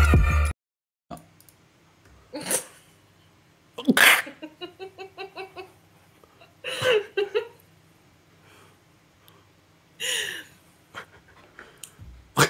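Intro music cuts off half a second in, then two people laugh over a video call: a sharp burst of breath about four seconds in, followed by a quick run of 'ha-ha' pulses, and further short bursts of laughter later on, with quiet between.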